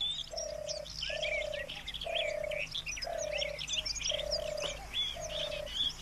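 Outdoor birdsong chorus: many small birds chirping and whistling, over a low cooing note repeated about once a second.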